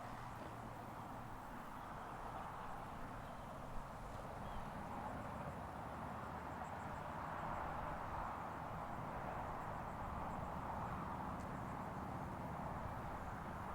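Steady outdoor background noise: an even hiss with a low rumble underneath and a few faint, high, brief chirps.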